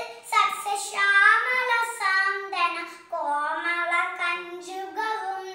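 A young girl singing solo, unaccompanied, in long held notes with short breaks between phrases.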